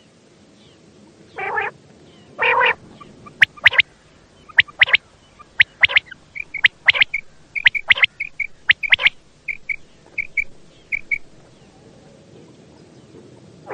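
Quail calling: a series of short, sharp notes, often in pairs, with quicker, softer paired notes through the middle and two longer, harsher calls early on.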